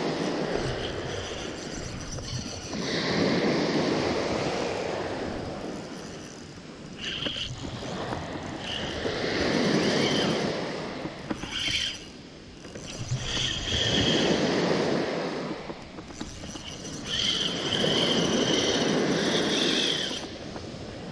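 Small surf washing onto a sand beach in swells about every four to five seconds, with a spinning reel being cranked and its gears and line whirring in short spells as a hooked fish is reeled in.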